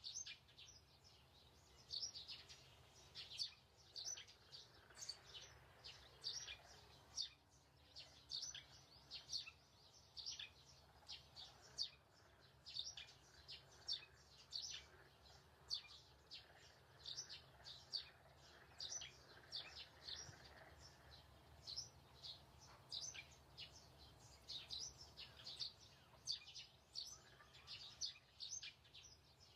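Birds chirping: many short, high chirps repeated throughout, faint, over a low steady hum.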